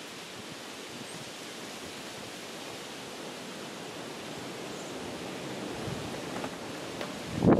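Steady wind and rustling outdoors, with a brief loud thump near the end.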